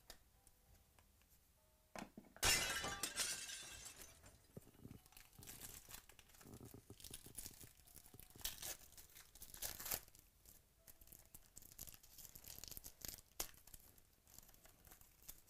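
Foil trading-card pack wrappers being torn open and crinkled in the hands, with a loud tearing crackle about two and a half seconds in and irregular crackling after it.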